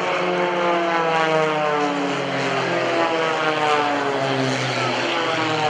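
Yellow CAP 580 aerobatic plane's piston engine and propeller running at power, its pitch falling steadily over several seconds as it passes and pulls up into a vertical climb.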